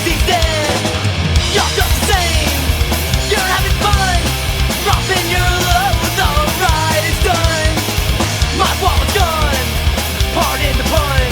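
Punk rock band recording with electric guitars, bass and drums playing an instrumental passage. It includes guitar notes that bend and slide in pitch over a steady driving beat.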